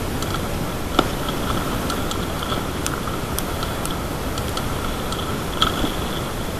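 Mountain bike ridden over a bumpy dirt trail, heard through a handlebar-mounted camera: a constant rushing noise of wind and tyres on the ground, with scattered rattling clicks from the bike and mount as it jolts, the sharpest about a second in and again near the end.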